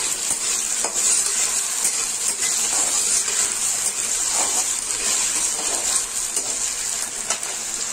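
Potato rounds and onions sizzling steadily in hot mustard oil in a kadhai, with a metal spatula scraping and clicking against the pan as they are stirred.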